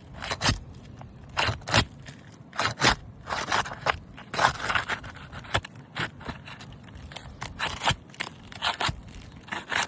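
A metal snake tool scraping under asphalt roof shingles in repeated short, irregular strokes, working them loose from their seal. The shingles are brittle and crunch as they are pried.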